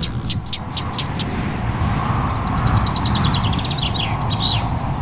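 Small songbirds calling and singing: a run of short, high notes repeated several times a second, then a fast trill that falls in pitch and ends in a few down-slurred notes. A steady low background rumble runs underneath.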